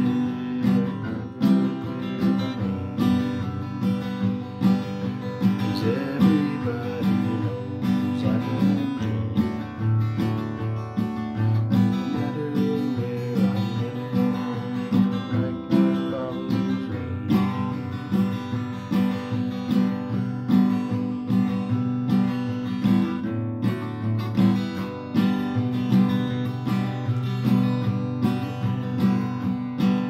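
Acoustic guitar strummed in a steady rhythm, the chords changing every few seconds.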